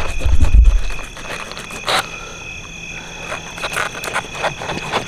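Steady insect chorus, several high trilling tones held without a break. A low rumble on the microphone covers the first second, and short rustles and clicks come and go after it, one sharper about two seconds in.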